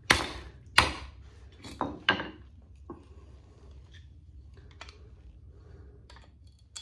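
Club hammer striking the steel case of a light ballast on a concrete paving slab, four sharp metallic blows in about two seconds and a lighter knock after, bending the case open. Then faint clinks and scrapes of handling.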